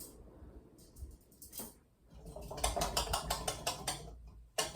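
Ceiling fan pull-chain switch being worked: a quick run of ratcheting clicks and chain rattle, about five or six a second, then a single sharp click near the end.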